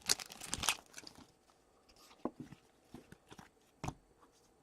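Foil wrapper of a hockey card pack crinkling for about the first second, then a few faint, separate clicks of cards being handled.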